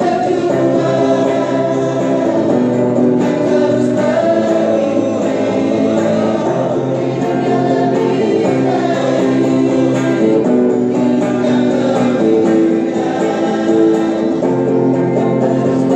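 A mixed group of young men and women singing together as a choir in long held notes, accompanied by a guitar.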